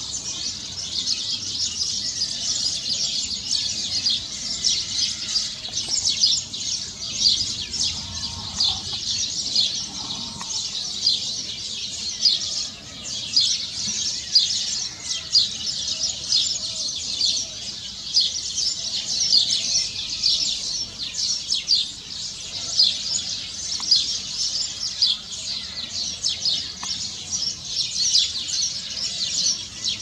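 A colony of Spanish sparrows chirping without pause, many short high chirps overlapping, several a second.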